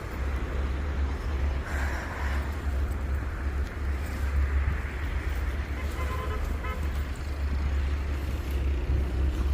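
Road traffic running slowly: a steady low rumble of vehicles.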